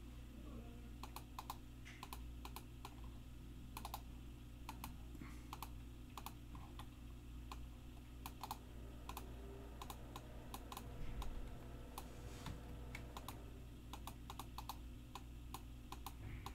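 Faint computer keyboard typing: irregular keystrokes and clicks, sometimes in quick runs, over a steady low hum.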